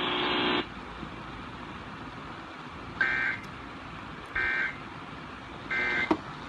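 NOAA Weather Radio receiver sounding the EAS end-of-message signal: three short identical warbling two-tone digital data bursts, about one and a half seconds apart, over steady radio hiss. The last of the broadcast audio cuts off about half a second in.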